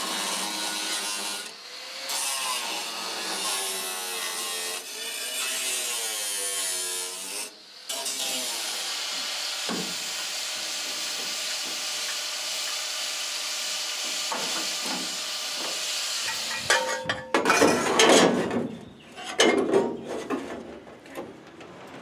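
Angle grinder cutting through the sheet-steel inner fender and firewall, its pitch wavering as the disc loads up in the cut. It lifts out of the cut for a moment twice. Near the end come louder, uneven bursts.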